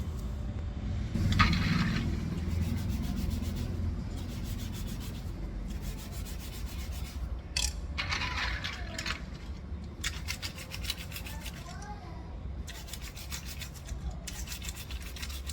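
A brush scrubbing over a mechanical keyboard in stretches of quick, rasping strokes, with short pauses between them.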